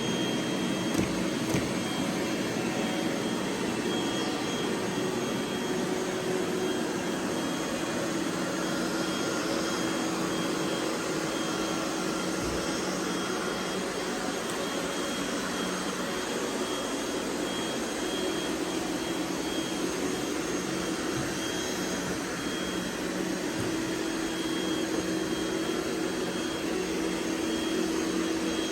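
Robot vacuum cleaners running: a steady whirring of motors and brushes with a thin high whine held throughout, and a couple of small knocks about a second in.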